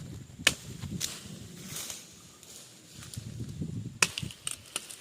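A handful of sharp chopping strikes of a hand tool into soil and cassava roots while digging up cassava: two about half a second apart near the start and two more around four seconds in, with low rustling between.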